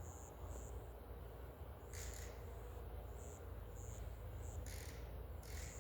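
Insects, likely crickets, chirping in short high-pitched pulses repeated every half second or so over a low rumble, with a few brief rustles or scrapes.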